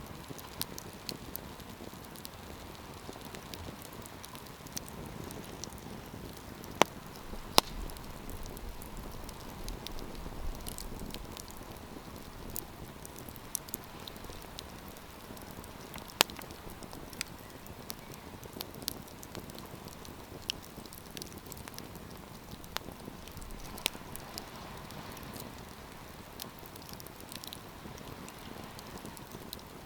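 Wood campfire crackling: a steady hiss of burning with scattered sharp pops and snaps, a few of them much louder than the rest.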